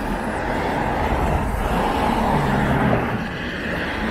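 A car driving past on the street, its engine and tyre noise swelling to a peak about two to three seconds in and then easing off.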